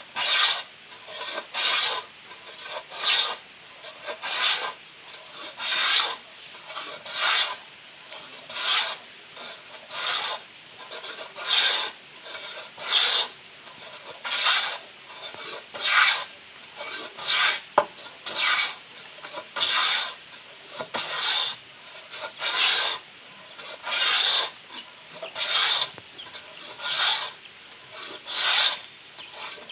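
Wooden hand plane shaving along a piece of wood in repeated strokes, each a rasping swish, at about one stroke a second. A single sharp tick comes about two-thirds of the way through.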